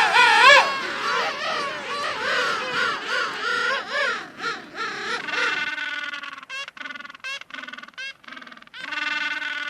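Animal calls: a run of loud, wavering cries that slide up and down in pitch, then, a little over halfway in, a series of short calls repeated about twice a second, with one longer call near the end.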